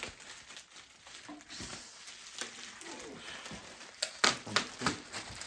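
Handling and unwrapping of packaging around new bicycle rims: low rustling and shuffling, then a quick run of sharp clicks and knocks about four seconds in.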